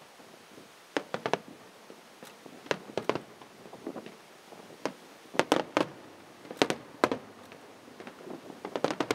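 Aerial firework shells bursting: sharp bangs in quick clusters of two to four, a cluster every second or two, loudest about halfway through.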